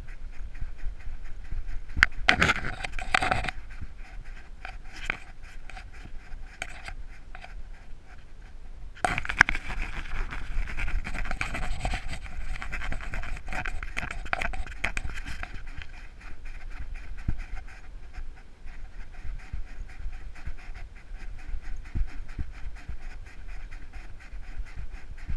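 A dog panting rapidly and steadily, picked up close by a camera strapped to its back, with louder stretches about two seconds in and again from about nine to fifteen seconds in.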